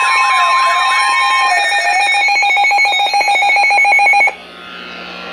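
Weather radio alarm for a test tornado warning: a steady alert tone, a warbling tone and rapid beeping layered together, cutting off suddenly about four seconds in and leaving a fainter radio hiss and hum.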